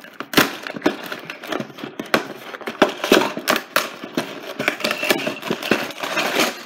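Small cardboard LEGO set box being handled and opened by hand: a busy run of sharp clicks, rustles and scrapes.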